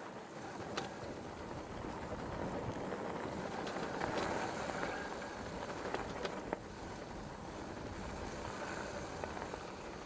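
Mongoose Tyax mountain bike rolling fast down a rutted dirt track: steady wind rush on the action camera's microphone with tyre rumble, and a few sharp clicks and rattles from the bike over bumps, a cluster of them about six seconds in.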